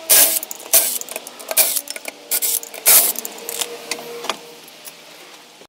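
Cordless impact wrench on a car's wheel nuts, hammering in several short bursts to loosen them, the loudest bursts near the start and about three seconds in, with the motor whirring between.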